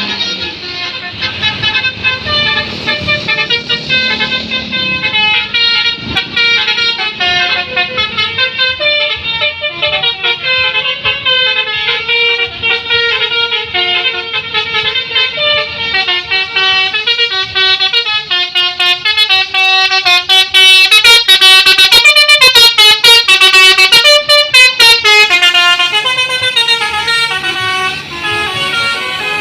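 Bus 'telolet' basuri horns, multi-note electric air horns, playing fast melodic note runs over and over. They get louder about two-thirds of the way through and ease off near the end.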